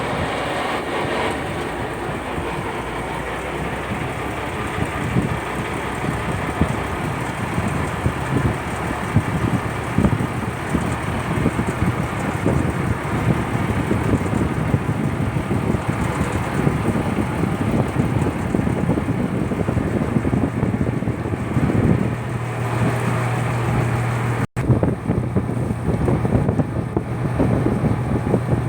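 A purse-seine fishing boat's engine running steadily, with rough wind and water noise. A steady low hum comes in about two-thirds of the way through.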